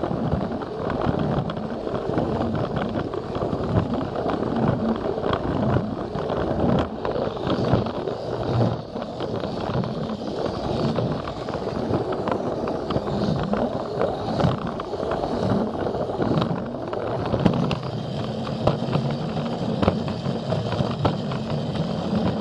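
Plarail battery-powered toy train running on plastic track: a small electric motor whirring steadily while the wheels rattle over the track, with many quick clicks from the rail joints.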